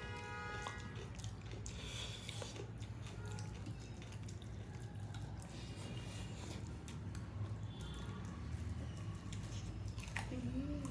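Close-up eating sounds: chewing, wet mouth sounds and scattered light clicks, over a steady low hum.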